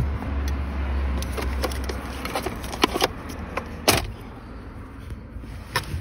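Scattered clicks and light metallic rattles of a test lamp and car wiring being handled while a wire is probed for power. A low hum runs under the first two seconds, and the sharpest click comes about four seconds in.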